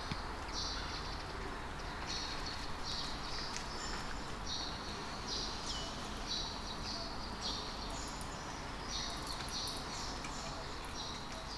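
A bird calling over and over outdoors: short buzzy calls about once a second over a steady background hiss.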